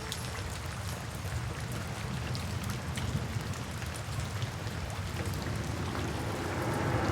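Steady rain falling, an even hiss with scattered fine drop ticks, growing a little louder near the end.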